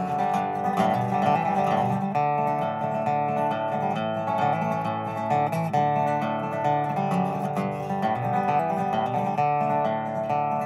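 Instrumental break in a folk song: acoustic guitar strummed and picked, with steady sustained notes over it, no singing.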